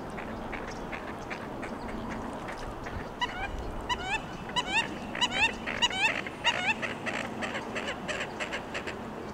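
Waterfowl calling: a string of short calls, each rising in pitch at the end, starts about three seconds in and thickens into a quicker run of shorter notes near the end, over steady background noise.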